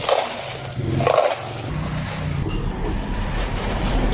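Ice cubes clattering as they are tipped from one plastic cup into another, two short bursts in the first second and a half, followed by liquid pouring over the ice, with a low rumble growing near the end.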